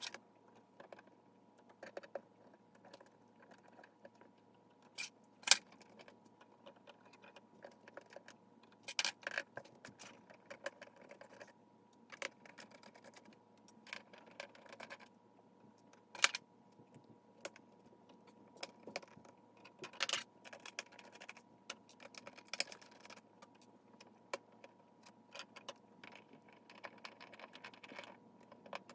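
Scattered small clicks and taps of a screwdriver and tiny screws against a ThinkPad T41 laptop's plastic case as the screen frame is unscrewed, over a faint steady hum.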